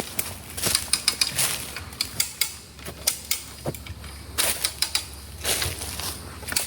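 Irregular clicks, clacks and rattles, several a second, from hands-on fence repair work.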